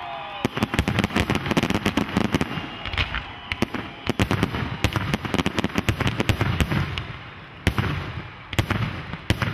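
Fireworks going off: a dense, rapid run of sharp pops and reports from aerial shells and ground effects starting about half a second in, thinning out after several seconds, then a few separate louder bangs near the end.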